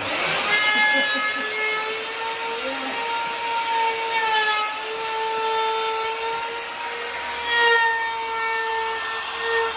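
Handheld wood router running flat out and cutting along the edge of a pallet-wood panel: a steady high whine over the rasp of wood being cut. The whine dips slightly in pitch now and then as the bit takes load.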